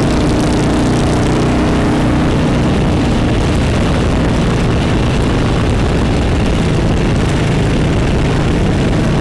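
Cruiser motorcycle riding at road speed: the engine runs steadily with wind rushing over the microphone. The engine's tone is clearest in the first few seconds, after which the wind rush covers it.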